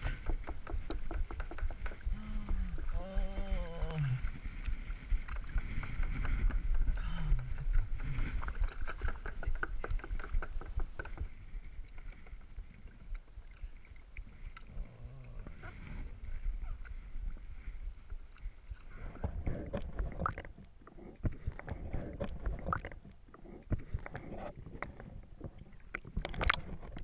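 Sea kayak paddling: water splashing and lapping against the hull with paddle strokes and a low wind rumble on the microphone. Short falling wordless voice sounds break in a few seconds in and again around seven seconds, and the water noise grows quieter and more broken later on.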